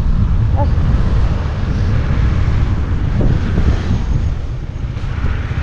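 Wind buffeting the microphone of a riding motorcycle at road speed, a dense steady rumble with the bike's engine and tyre noise underneath.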